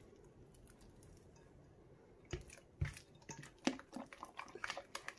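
Sticky partly-activated clear-glue slime being stirred with a stirring stick in a glass bowl: quiet at first, then irregular wet squelches and clicks from about two seconds in, with a couple of low knocks as the bowl shifts.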